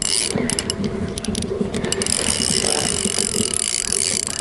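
Spinning reel working while a hooked fish pulls on a sharply bent rod: fast, continuous ratcheting clicks from the reel's mechanism.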